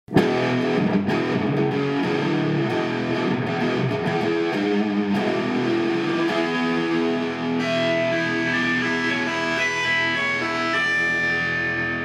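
Intro music led by a distorted electric guitar. It starts abruptly, with a choppy riff that gives way to held, ringing notes in the second half.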